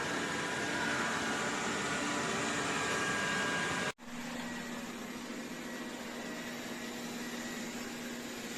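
Robot vacuum cleaner running with a steady whir. The sound cuts out for an instant about four seconds in, then carries on slightly quieter.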